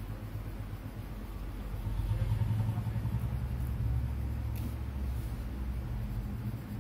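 A low rumble with a steady hum, swelling about two seconds in and easing after a few seconds, with faint pencil strokes scratching on paper.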